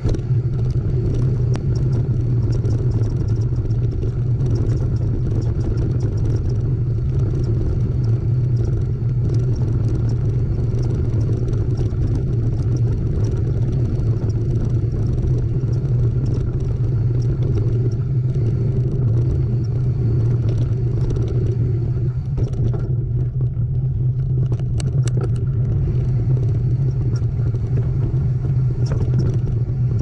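Steady low rumble with scattered light clattering clicks, typical of a mountain bike ridden down a rough trail: wind on the microphone and the bike rattling.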